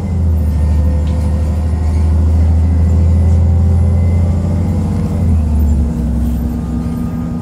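Heuliez GX127 city bus's diesel engine running, heard on board: a loud, steady low rumble that eases slightly about six seconds in.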